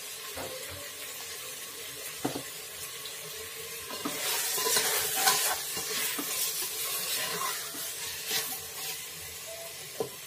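Chicken pieces with onion and masala sizzling in a pressure cooker while a slotted spatula stirs and scrapes through them, the stirring growing louder about four seconds in, with a sharp knock of the spatula near the end.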